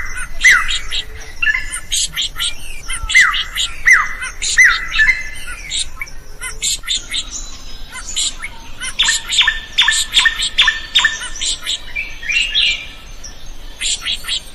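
Drongo singing a loud, varied song of sharp chattering notes and downward-sweeping whistles. In the second half it gives a run of harsh notes repeated at an even pace, about three a second.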